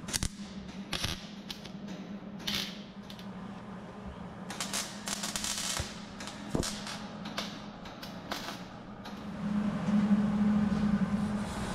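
MIG welder crackling in several short, irregular bursts as it welds a new steel rear quarter panel at the wheel opening, over a steady low hum.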